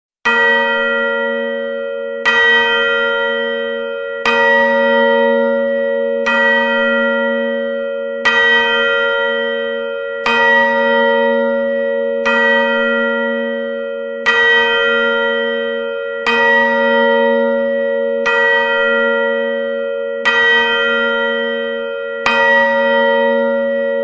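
A large clock bell striking twelve times for midnight. The strokes come at an even pace about two seconds apart, each on the same note, and each rings on with a long hum into the next.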